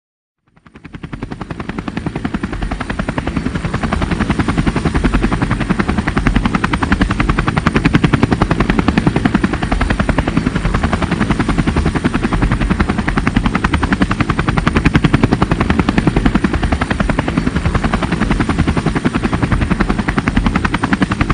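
Helicopter rotor blades chopping in a rapid, even beat, with a thin, steady high whine above. It fades in from silence over the first two or three seconds, then holds steady.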